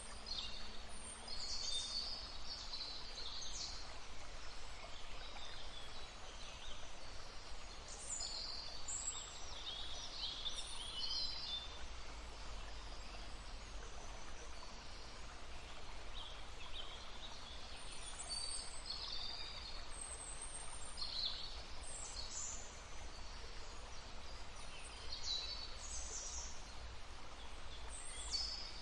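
Several songbirds singing and calling in short high phrases and trills over the steady rushing of a babbling brook. The birdsong comes in clusters, with gaps of a few seconds between them.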